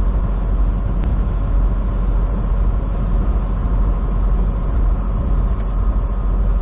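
Steady engine and road noise inside a semi truck's cab while cruising on the highway, a constant low rumble.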